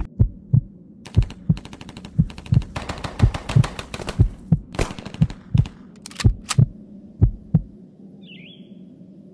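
Deep thumps in a steady rhythm, about three a second, with crackling rustle over the first half; the thumps stop near the end, leaving a faint hum.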